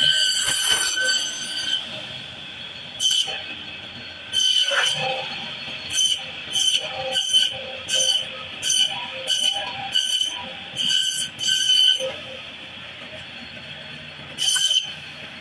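Meat band saw running, its blade screeching each time it cuts through a whole bhetki fish, scales and bone. There is a long cut at the start, then two single cuts, then a quick series of about ten short cuts, each under a second apart, and one more cut near the end.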